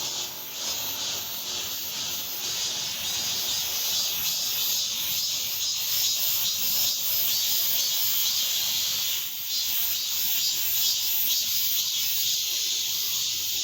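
Chorus of male cicadas singing: a loud, steady, high-pitched buzz with a fast pulsing texture, dipping briefly about nine seconds in.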